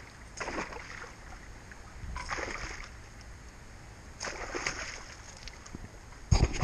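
Hooked pike splashing and thrashing at the water's surface close to the bank, in three short bursts about two seconds apart. A loud low bump near the end.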